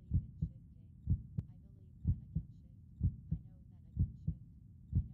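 Recorded heartbeat, a slow steady lub-dub: paired low thumps about once a second over a faint low rumble.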